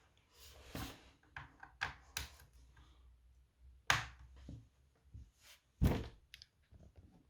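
Velocifire VM02WS wireless mechanical keyboard being handled and its keys pressed now and then: irregular clicks and knocks, with two louder knocks about four and six seconds in.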